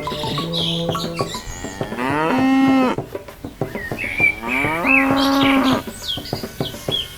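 A cow mooing twice, each call about a second long, rising and then holding steady, over light background music with short bird-like chirps.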